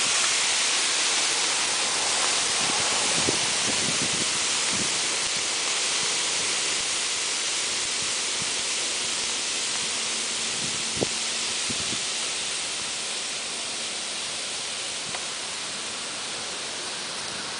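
Sodium hydroxide reacting with aluminum: a steady hiss of fizzing and vapour venting from under an upturned aluminum foil pan, slowly dying down, with a few faint ticks.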